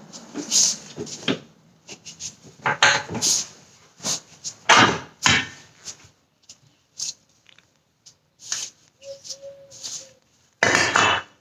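Irregular knocks and clinks of hand tools and metal parts being handled during car suspension work, with a short squeak about nine seconds in.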